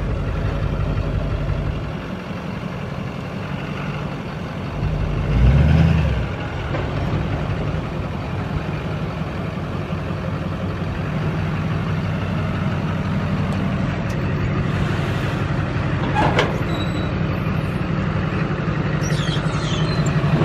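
Duramax V8 turbodiesel pickup engine running steadily at low revs under load as it tows a loaded trailer over dirt, with a brief louder surge about six seconds in and a sharp knock or two later on.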